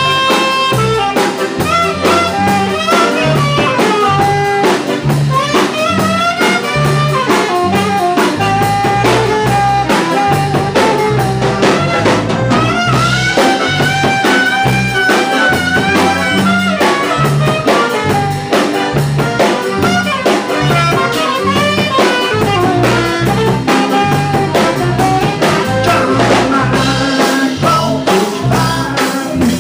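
Live band playing: a saxophone carries the lead melody over a drum kit and a low rhythmic bass pulse.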